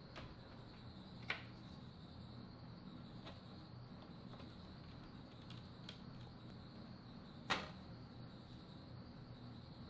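Faint clicks and light taps of 3D-printed plastic body panels, a hood and a fender, being handled and fitted by hand over a low steady room hum. Two of the clicks are a little louder, one about a second in and one late on.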